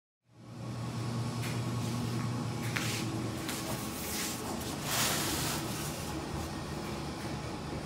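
A cardboard box and its styrofoam packing being handled and shifted, with a few short scrapes and rustles, the loudest about five seconds in, over a steady low hum.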